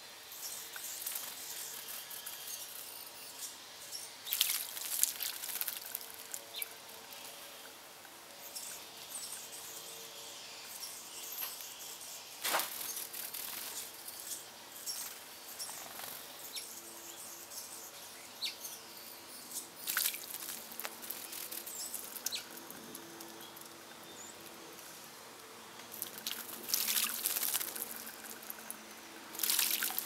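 Small birds bathing in a shallow bird bath, flicking their wings in the water: short bursts of splashing every few seconds, several in quick succession near the end.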